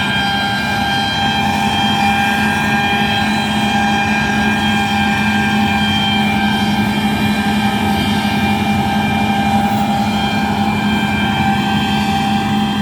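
Heavy harvest machinery running steadily under load: a constant deep engine hum with a steady high whine over it, unchanging in pitch and level.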